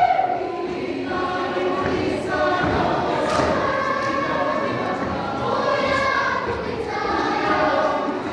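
A large choir of mostly children's voices singing together.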